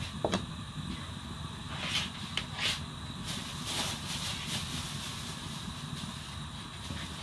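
A lidded pot boiling on a gas hob gives a steady low rumble. Steam hisses out from under the lid in several rushes around two to four seconds in, after a light click near the start.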